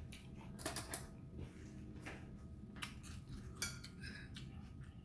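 Eating utensils clinking against a bowl: a few sharp clinks, the loudest about three and a half seconds in.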